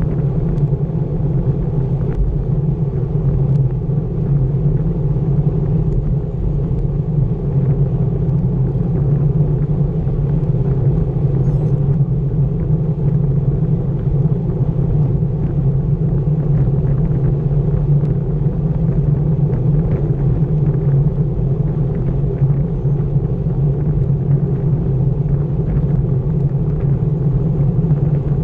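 Steady wind rumble on a bicycle-mounted action camera's microphone, mixed with road-bike tyres humming on asphalt, at about 24 mph.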